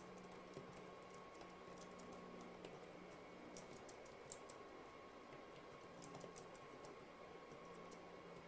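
Faint, quick key clicks from an Anker ultra-slim Bluetooth keyboard being typed on, coming in irregular runs, over a faint steady hum.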